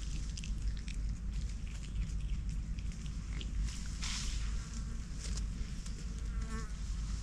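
Dry leaf litter crackling and rustling as lemurs move about on the forest floor, with insects buzzing. A short wavering call comes near the end.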